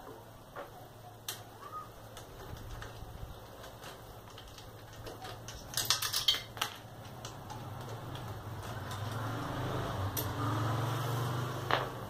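Metal hand-tool clicks and clinks as bolts are loosened on the rocker-arm assembly of a motorcycle's single-cylinder head, with a quick run of louder clicks about six seconds in. A steady low hum runs underneath and grows louder in the last few seconds.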